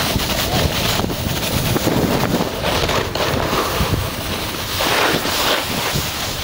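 Wind buffeting the microphone of a camera carried by a skier going downhill, a steady low rumble, mixed with the hiss of skis sliding and scraping over snow that swells a few times.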